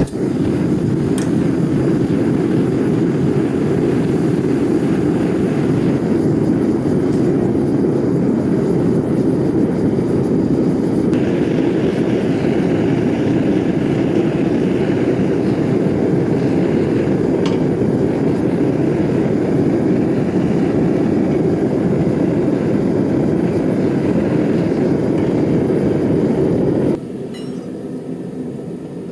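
Forge running with a loud, steady rushing noise as a piece of rebar heats in it; the noise drops off sharply near the end.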